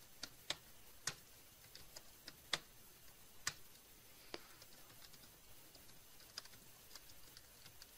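Keystrokes on a computer keyboard: faint, irregular clicks, a few of them louder, as a password and a name are typed in.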